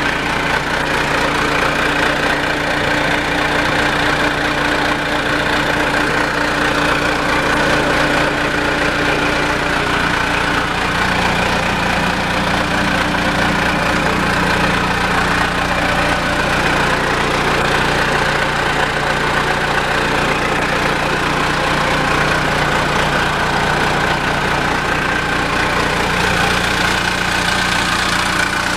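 Engine of a 1992 Hyster H155XL 10,000 lb forklift idling steadily.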